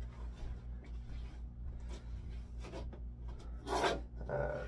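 Cloth rag rubbing over a rusty steel handsaw blade as it is wiped down with oil, in a series of soft strokes with a louder swipe near the end.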